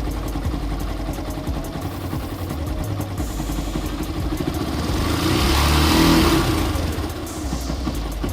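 Yamaha SZ-R motorcycle's single-cylinder engine idling, revved once near the middle and dropping back to idle. It runs without the knocking, breaking-up noise it had before, now cured by a repair on the magneto side of the engine.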